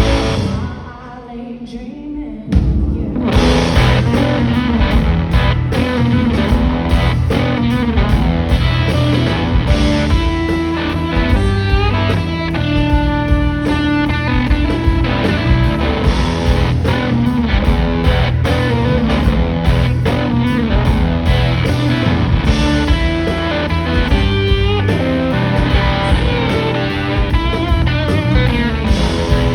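Live blues-rock band playing loud, electric guitar over bass and drums. About a second in the sound drops back briefly, and the full band crashes back in after about three seconds.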